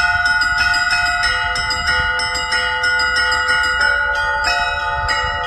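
Church bells ringing, several bells of different pitches struck in a quick rhythm of about three strikes a second, their tones overlapping and ringing on.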